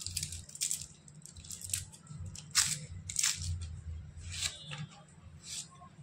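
Red onions being peeled by hand and cut on an upright floor blade (vili): a series of short, crisp crunches and rustles of dry skin tearing and onion being sliced, coming at irregular moments, the sharpest about two and a half seconds in.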